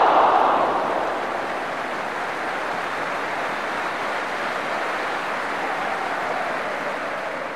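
Spectators at a football match shouting in reaction to a shot on goal. The noise swells to a peak at the very start, then settles into a steady din.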